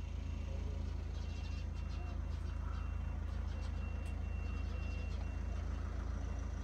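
Heavy vehicle's diesel engine running steadily, with its reversing alarm sounding a row of evenly spaced high beeps from about a second in as it backs up.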